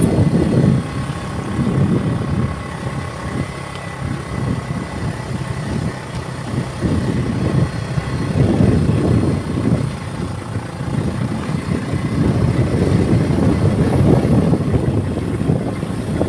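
Car driving along a road, heard through an open side window: wind gusting over the microphone over the engine and road noise, swelling and falling every second or two.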